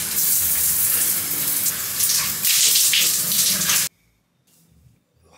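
Shower running, its water spraying and splashing as a steady rush, which stops abruptly about four seconds in; then near silence.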